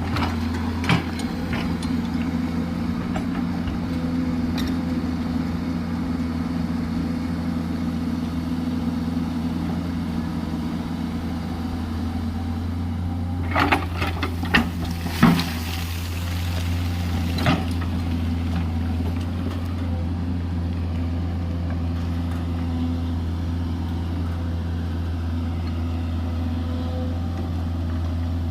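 JCB 210LC tracked excavator's diesel engine running steadily, with a few sharp knocks: one about a second in and a cluster about halfway through.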